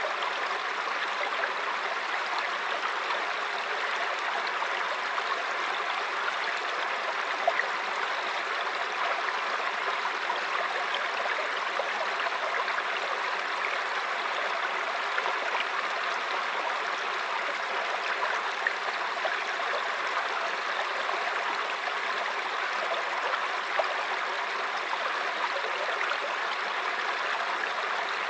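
Running water rushing steadily, as from a waterfall or fast stream, with no change in level.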